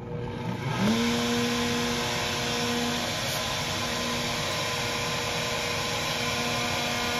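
Table-mounted wood router with a 1-1/2" round-over bit starting up at reduced speed: a whine rises about half a second in, then settles into a steady running tone while a small wooden block is fed past the bit.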